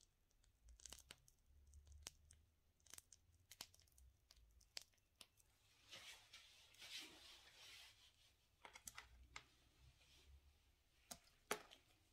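Faint scattered clicks and rustling of a plastic piping bag being squeezed and handled while buttercream is piped, with a longer rustle about six to eight seconds in.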